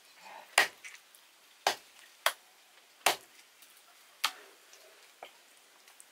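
Large knife chopping raw broiler chicken on a wooden log chopping block: about six sharp chops at uneven intervals of roughly a second, the last one fainter.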